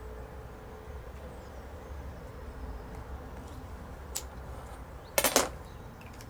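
Small handling sounds at a workbench over a steady low hum: a faint tap about four seconds in, then a short burst of sharp clicks and scrapes a little after five seconds, the loudest moment.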